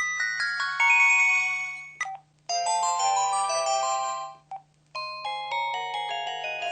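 KTF-X7000 mobile phone playing its built-in sound effects: three short synthesized melodic jingles in turn, each about two seconds long, with brief pauses between them.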